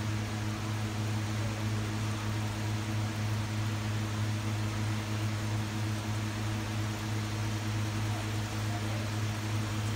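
A steady low machine hum with an even hiss over it, constant throughout, from a kitchen where a wok of adobo simmers on a gas burner.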